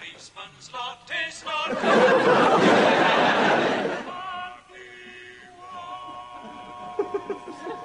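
Studio audience laughing, then a man singing: a few short notes followed by one long held note at a steady pitch.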